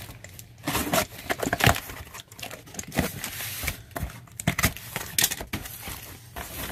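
Box cutter slicing through packing tape on a cardboard box, then the cardboard flaps being torn and pulled open: a quick run of short scraping and ripping sounds with cardboard rustling.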